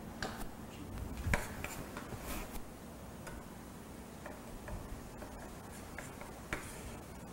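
Kitchen utensils lightly clicking and scraping: a few separate taps, a longer scrape about two seconds in, and a click near the end.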